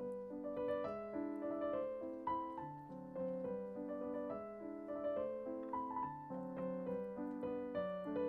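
Background piano music: a gentle melody of separate notes over held lower notes.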